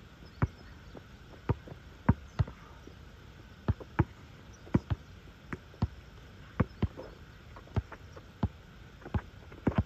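Basketball being dribbled on an asphalt court: sharp bounces at an uneven pace, about two a second, some in quick pairs.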